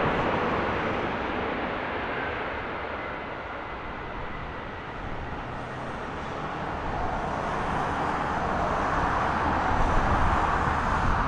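Airbus A340-600's four Rolls-Royce Trent 500 jet engines whining and rushing during the landing rollout. The sound dies down to its quietest about five seconds in, then swells again over the last few seconds as the airliner rolls closer.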